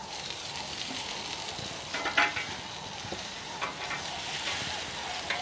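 Slices of Wagyu beef steak sizzling on a hot grill grate, with a few short metal clicks from tongs handling the meat about two seconds in and again later.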